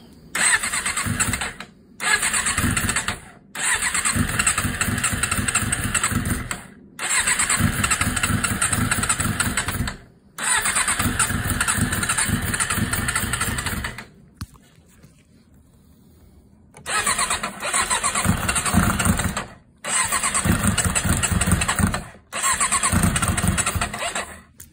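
Suzuki GSX600F's inline-four cranked over on its electric starter in eight bursts of one to four seconds each, with a longer pause about halfway; it does not settle into a steady idle. These are starting attempts with fresh oil just put in.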